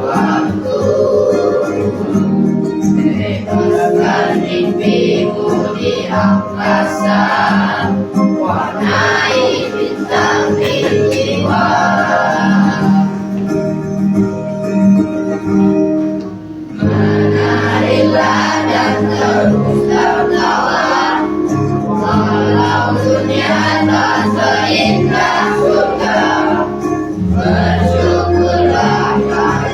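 A choir of young teenage students singing in mixed voices over a steady instrumental accompaniment, with a short lull about halfway through before the singing carries on.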